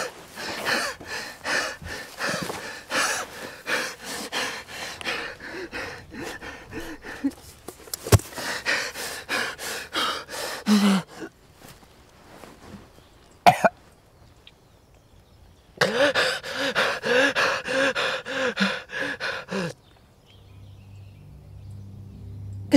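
A person coughing and gasping for breath in rapid, ragged fits, about four a second, in two long bouts with a short pause between them.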